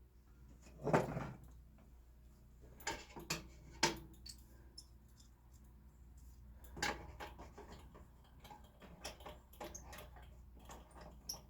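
Workshop handling noises: a scattered series of knocks and clicks from wood and hand tools being moved and set, the loudest a thump about a second in. No saw is running.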